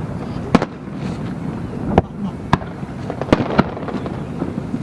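Aerial fireworks shells bursting: a string of about five sharp bangs, irregularly spaced, over a continuous low rumble of further bursts.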